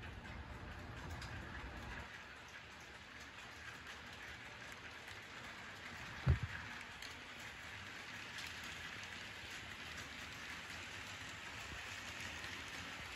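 HO scale model train, an Iowa Interstate 850 diesel with covered grain hoppers, rolling along the track: a steady hiss of wheels and mechanism with scattered faint clicks. There is one short low thump about six seconds in.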